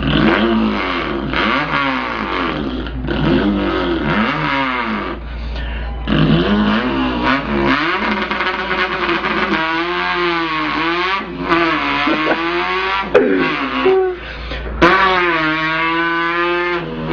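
A man imitating an import car's engine with his voice, a vocal sound effect. The pitch revs up and drops back again and again, like an engine accelerating through its gears.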